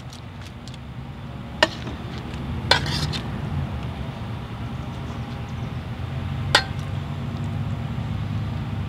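Metal utensil scraping and clinking against a steel pan as fajita meat is scooped out onto a tortilla, with a few sharp clinks, one about a second and a half in, a short run of them near three seconds, and one more late on. Under it runs a steady low rumble.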